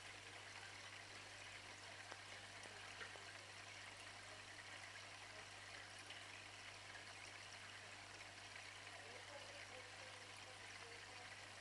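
Faint, steady trickle and hiss of aquarium water moving from a filter outflow, over a low steady hum.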